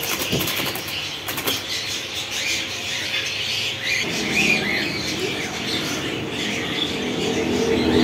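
Rose-ringed (ring-necked) parakeet beating its wings in a wire cage, a quick flurry of wing flaps in the first second and a half. Short bird chirps come in faintly near the middle.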